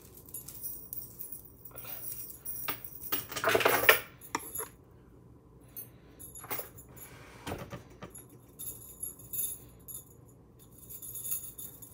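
Metal chain necklaces jingling and clinking in irregular bursts as they are handled and pulled off over the head, loudest a few seconds in.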